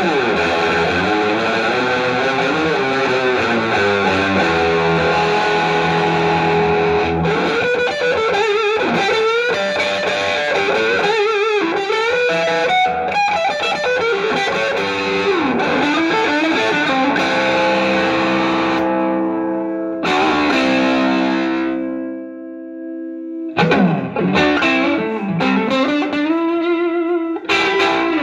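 Electric guitar played through a Speedster Class A 40 valve head with EL84 power tubes into a Speedster 2x12 cabinet: held notes that bend and waver in pitch. The playing stops briefly about three quarters through, then starts again.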